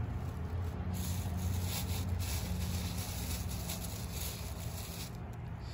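Thin plastic bag crinkling in a hand for a few seconds as chopped vegetables are shaken out of it, over a low steady rumble.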